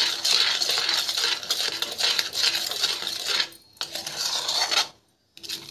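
Metal spoon scraping and clinking against a metal kadhai as a thick milk-powder peda mixture is stirred continuously over low heat to thicken it. The stirring stops briefly about three and a half seconds in and again near the end.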